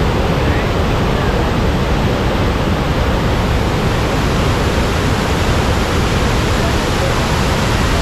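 Vazhachal waterfall's water pouring and rushing: a loud, steady, unbroken roar of noise.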